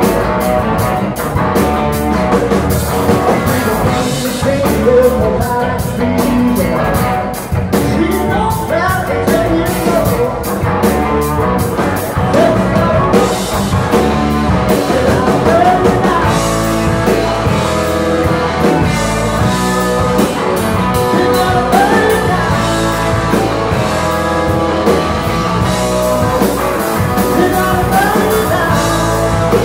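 Live rock band playing loud and steady: electric guitars, bass and a drum kit with cymbals, with a man singing over them.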